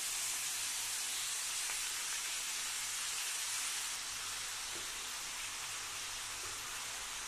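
Marinated potato pieces and spring onion stalks sizzling in a little hot oil in a steel kadai over a low flame: a steady, even hiss that drops slightly about four seconds in.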